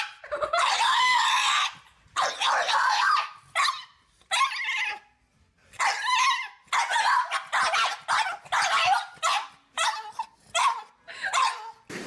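A small flat-faced puppy howling in a run of about a dozen high-pitched calls, the first ones long and drawn out, the later ones shorter and coming faster.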